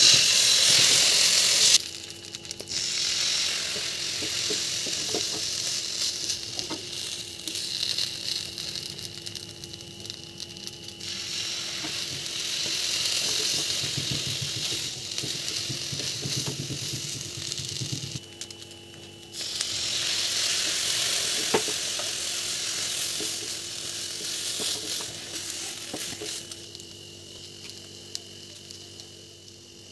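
Milk hissing loudly as it is poured into a hot nonstick frying pan, then a slice of bread frying in the bubbling milk with a steady sizzle. The sizzle drops away briefly twice and is quieter in the last few seconds.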